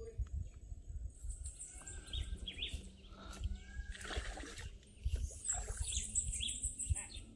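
Several birds chirping and calling from about a second in, over a low, irregular rumble.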